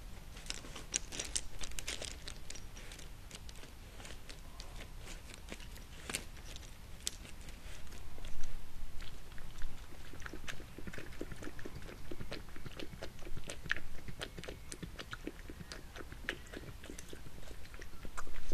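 European badger drinking at the pond edge, lapping and snuffling with irregular wet mouth clicks and smacks.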